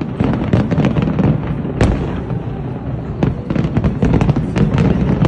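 Fireworks display: a rapid barrage of sharp bangs and crackles over a continuous low rumble, with one especially sharp bang a little under two seconds in.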